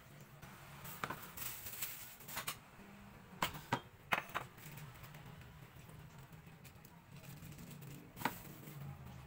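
Light clatter of kitchen items being handled on a countertop: a handful of short clicks and knocks, the busiest cluster a few seconds in and one more near the end, over a low steady hum.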